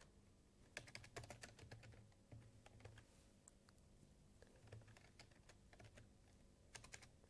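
Faint computer keyboard typing: short runs of key clicks with pauses between them.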